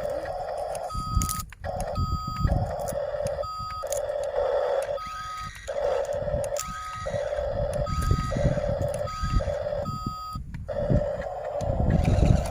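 Heavy machine's reversing alarm sounding repeatedly, a lower tone alternating with a higher beep about once a second, over an engine running.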